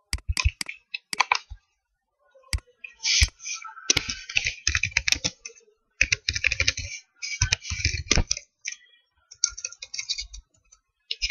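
Computer keyboard typing in quick bursts of key clicks with short pauses between them, after a few separate clicks at the start.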